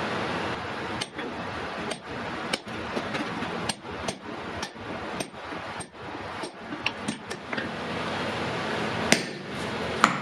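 Hand hammer striking hot iron on an anvil during forging: irregular blows, a run of lighter, quicker taps in the middle and two louder ringing strikes near the end, over a steady rushing noise.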